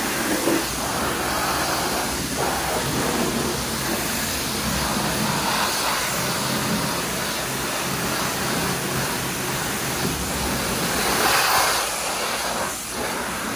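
High-pressure water spray from a self-serve car wash wand hitting a car's bodywork: a steady hiss that swells and eases as the jet moves, loudest about eleven seconds in.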